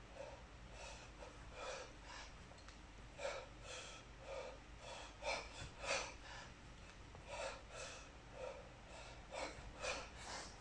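A man's hard, sharp breaths in and out, roughly one every half second to a second and often in pairs, the paced breathing of exertion during a long set of one-arm kettlebell snatches with a 32 kg bell.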